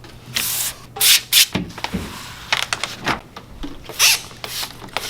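Trigger spray bottle spritzing several short hissing bursts, with rubbing and handling noises between them.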